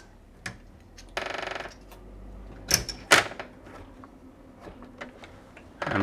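Sharp clicks and knocks of the smart lock's inside module being handled and fitted against the door, loudest around the middle. About a second in there is a short buzzing rattle lasting about half a second.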